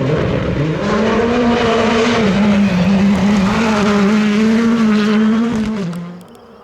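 Rally car engine held at high revs, its pitch dipping and rising through gear changes and throttle. The sound drops away quickly about six seconds in as the car gets away.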